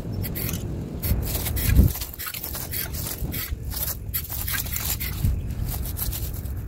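Aerosol can of Rust-Oleum Camouflage matte black spray paint hissing in short, repeated bursts over a steady low rumble.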